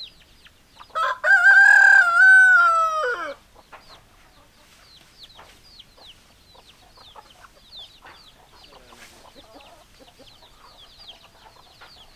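A rooster crows once about a second in: a loud call of a little over two seconds that drops in pitch at its end. Faint, quick, high cheeping calls continue underneath, with soft low clucking later on.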